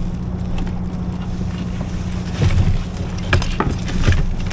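Steady wind rumbling on the microphone, with a few short knocks in the second half.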